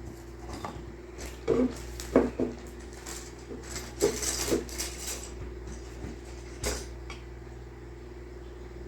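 Hard plastic model-kit parts trees clacking and knocking together as they are handled, with some rustling of their plastic bags. The clacks come in scattered bunches and thin out near the end.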